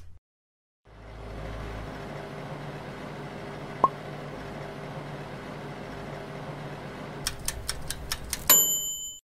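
Countertop toaster oven running with a steady hum that starts about a second in. Near the end come a quick run of clicks from its dial timer, then a single bell ding that rings on briefly as the timer reaches zero.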